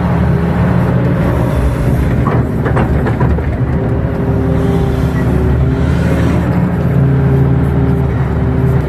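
KATO crawler excavator's diesel engine running steadily under digging load, heard from the operator's cab while the bucket scoops and levels wet mud, with a few brief knocks about two to three seconds in.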